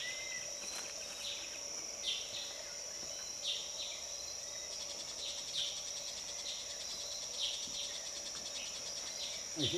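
Forest insect chorus: a steady high-pitched drone, with short chirps recurring every second or two.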